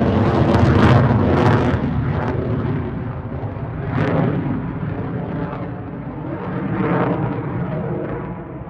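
Boeing F-15QA twin-engine jet fighter passing, a loud rumbling jet noise broken by sharp crackles that fades toward the end.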